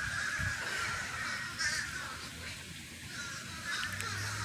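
A flock of crows cawing from a tree.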